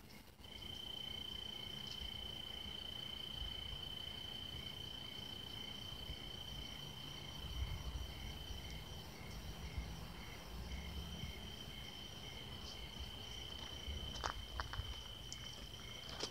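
Crickets at night: one high steady trill holds throughout, while another insect chirps in evenly spaced pulses at a lower pitch. Underneath is a low rumble, and a few soft clicks come near the end.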